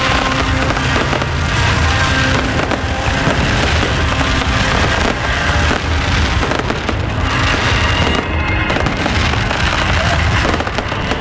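Fireworks bursting and crackling continuously over loud music from the show's sound system.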